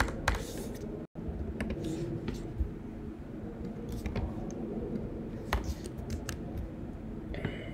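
Scattered computer keystrokes and clicks from editing code, over a steady low room hum, with a momentary dropout about a second in.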